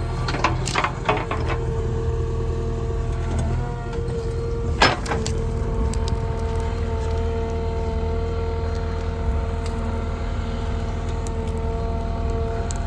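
JCB 3DX backhoe loader's diesel engine running steadily under load with a steady whine over it, and a few sharp knocks, the loudest about five seconds in.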